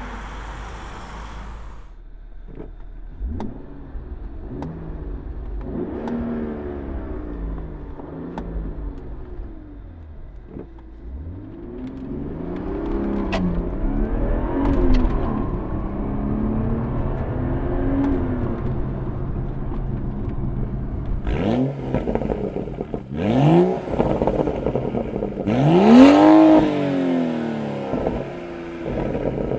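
BMW 335i/435i turbocharged inline-six with an AWE Tuning cat-back exhaust, revved again and again so the exhaust note rises and falls in pitch with each rev. In the last third the revs come as quicker, sharper blips, the loudest about 26 seconds in.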